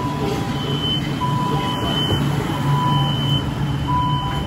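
Metro door-closing warning: a beeper sounding repeated two-tone beeps, a lower and a higher pitch taking turns, over the steady low hum of the train standing at the platform. It is the signal that the doors are about to close.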